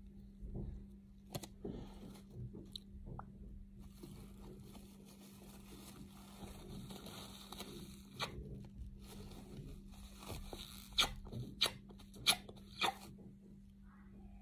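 Paper tissue crinkling and rustling close to the microphone as it is pressed against lipstick-covered lips to blot them, ending in several sharp crinkles.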